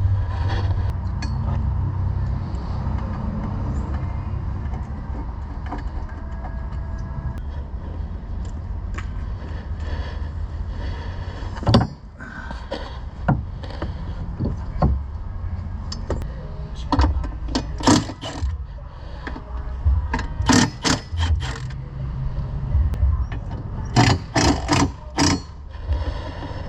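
A steady low rumble with a series of sharp knocks and clanks from about halfway through, several coming in quick bursts, as cage parts are worked into place.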